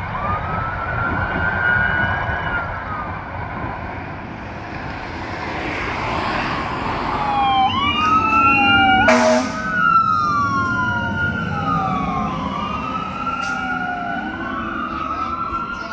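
Fire engine sirens wailing. A single wail fades away over the first few seconds; then from about seven seconds in, two or more siren tones rise and fall and overlap, with a short, loud horn blast about nine seconds in.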